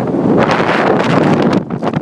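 Strong gale-force wind buffeting the microphone in a loud, rumbling rush that eases slightly near the end.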